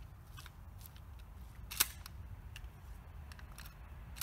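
A single sharp gunshot crack about two seconds in, heard at a distance, over a low outdoor background with a few faint clicks.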